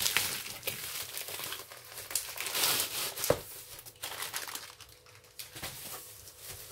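Black plastic poly mailer bag and bubble wrap crinkling as a wrapped box is slid out of the mailer and handled, with one sharp knock a little after three seconds in.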